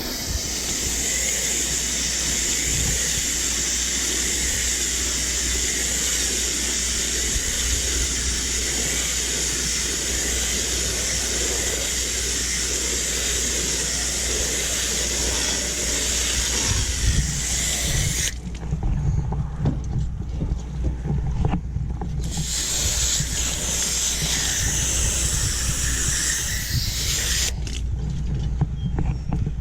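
Garden hose spraying water onto an air conditioner's condenser coil, a steady hiss. The spray breaks off about two-thirds of the way through, comes back for a few seconds, then stops again near the end, over a low rumble.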